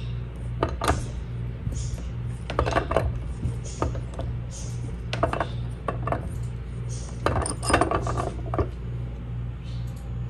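Light metallic clinks and taps in several short clusters, from flatware pieces (a bent spoon and fork tines) being handled and knocked together on the work surface. A steady low hum runs underneath.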